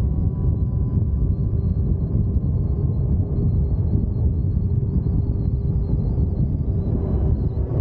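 Wind rushing over the microphone of a moving electric motorcycle, a steady low rumble with a faint steady whine above it.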